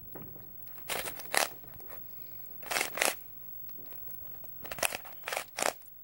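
Plastic Rubik's cube being twisted by hand: short bursts of clacking and scraping as the layers turn, in three groups of two or three turns.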